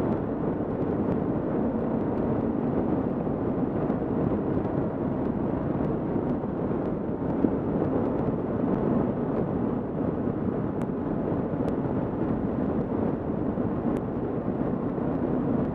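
Steady wind rush over a helmet-mounted camera, with the drone of a Kawasaki KLR650's single-cylinder engine under it as the motorcycle cruises at an even pace.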